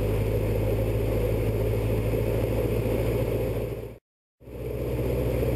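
Robin DR400 light aircraft's single piston engine and propeller droning steadily, heard inside the cockpit in cruise. The sound fades out just before four seconds in and fades back in about half a second later.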